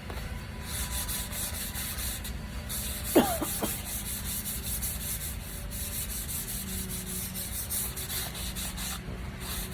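Fine 400-grit sandpaper rubbed back and forth by hand in quick, even strokes, a rasping hiss that pauses briefly after about two and a half seconds. A short sliding squeak about three seconds in.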